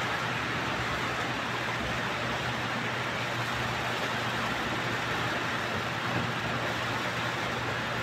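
Steady rain falling, an even hiss with no break or change.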